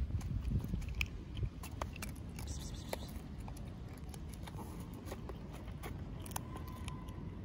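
Kittens crunching dry kibble, irregular sharp crunches of pellets being bitten, with pellets scraping on a plastic tray.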